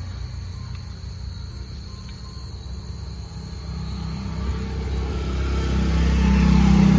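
A passing vehicle's engine: a low hum that grows louder through the second half as it approaches. A steady high insect trill sounds in the background and fades out about halfway.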